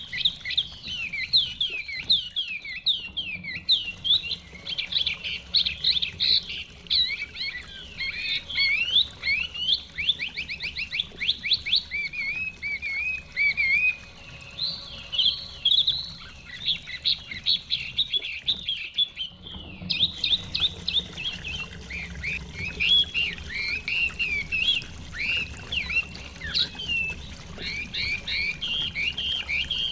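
Chinese hwamei (melodious laughing thrush) singing continuously: a rich, varied run of high whistled phrases and rapid trills, with a brief lull about two seconds in and another near two-thirds of the way through.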